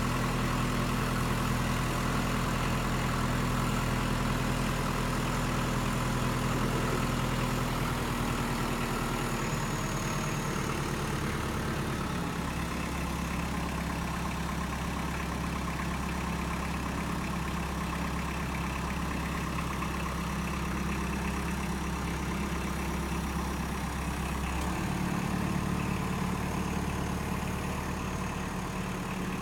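Kubota M59 tractor-loader-backhoe's diesel engine running steadily, its note shifting about a third of the way in and again near the end.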